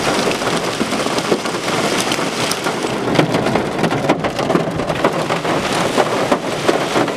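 Heavy wind-driven rain and hail pelting down: a steady dense rush with many sharp, irregular hits over it.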